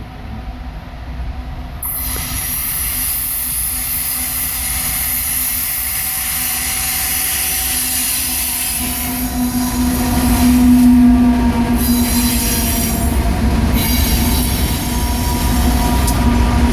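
Freight train led by an ES44 diesel locomotive rolling past slowly, about 20 to 25 miles an hour, with rumbling wheels on the rails. A high-pitched wheel squeal comes in suddenly about two seconds in, and a steady droning tone swells louder around ten seconds in and again near the end.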